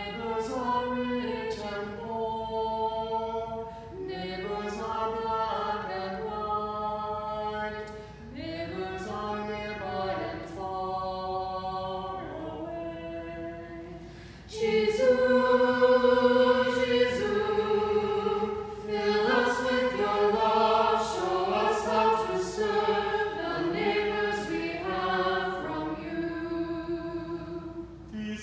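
A small mixed choir of men's and women's voices singing unaccompanied, in phrases with short breaths between them; the singing becomes suddenly louder about halfway through.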